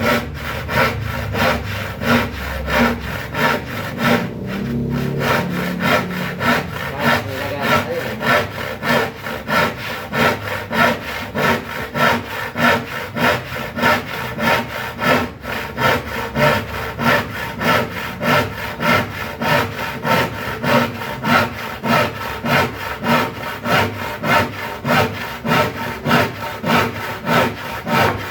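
Hand saw cutting through marine plywood in steady back-and-forth strokes, about two a second.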